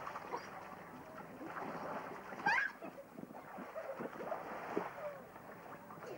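Pool water splashing and churning as children tumble off an inflatable pool toy, with a child's short, sharply rising squeal about two and a half seconds in and further brief cries and shouts after it.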